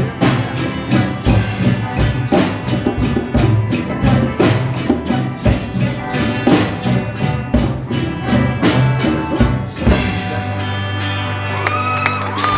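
Live rock band with electric bass, drum kit and djembe hand drums playing a steady beat. About ten seconds in the drums stop on the final hit, and a single low note is held and rings out.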